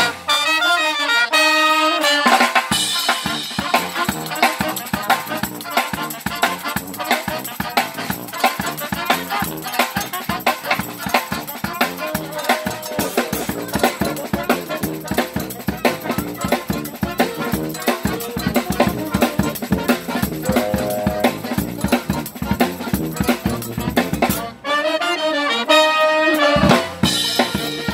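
Live brass band playing: saxophones, trumpet, trombone and sousaphone over a drum kit with snare and cymbals. The horns start alone, and the drums come in about two seconds in.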